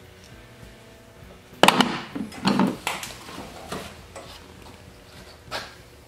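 A sharp knock about a second and a half in, followed by a few quicker knocks and rattles and one more knock near the end, over a faint steady hum.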